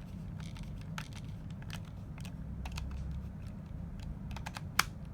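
Phillips screwdriver turning small screws into a plastic toy robot's battery pack: scattered light clicks and ticks, with one sharper click near the end.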